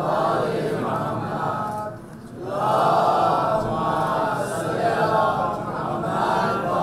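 Men's voices chanting together, breaking off briefly about two seconds in and then starting again.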